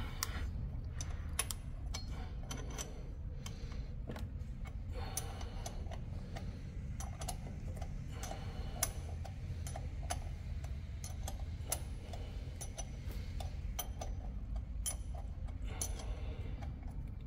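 Irregular light metallic clicks and taps of tools and brake parts being handled as pads and their retaining pin are fitted into a BMW R1200GSA's front brake caliper, over a steady low hum.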